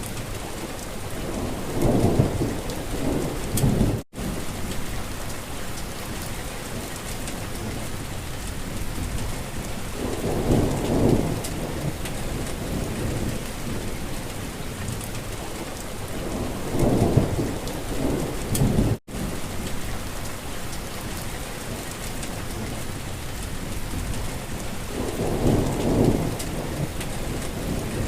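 Steady rain falling, a dense even hiss, with a low rumble swelling up and fading four times. The sound cuts out for an instant twice.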